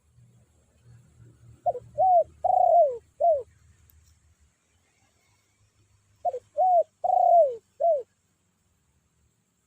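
Spotted dove (tekukur) decoy cooing: two loud phrases of four notes each, a short note, another short one, a long drawn-out note and a short closing one, calling out to rival doves.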